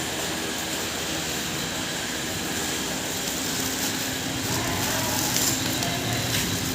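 Impact pulverizer (hammer mill) grinding machine running: a steady mechanical hum and rush that grows a little louder about four seconds in.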